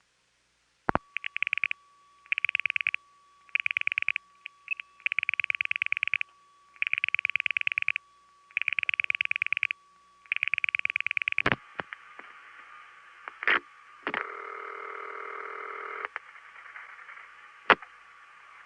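Telephone dial pulsing on a long-distance trunk, recorded off the line: seven trains of rapid clicks, one per digit, over a faint steady tone, with a brief blip after the third digit. After the pulsing comes a click, line hiss, a buzzy tone for about two seconds, and another click.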